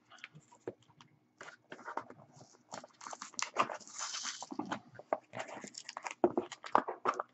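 Hands pulling and tearing at nylon strapping tape on a small cardboard box: irregular crackles, rips and scuffs of tape and cardboard, with a longer tearing rasp about four seconds in. The tape holds and resists being torn by hand.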